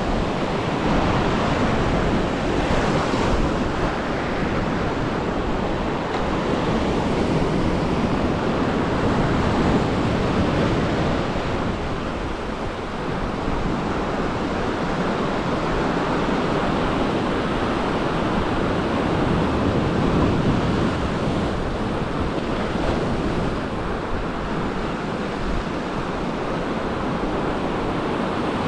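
Ocean surf breaking and washing over a rocky lava shoreline shelf. It is a steady rush of white water that swells and eases as each wave comes in.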